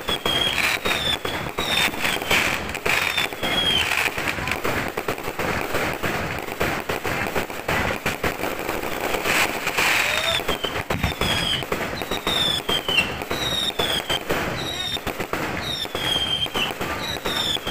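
Fireworks and firecrackers going off in a dense, continuous crackle of sharp bangs and pops, with short falling high-pitched whistles repeating throughout.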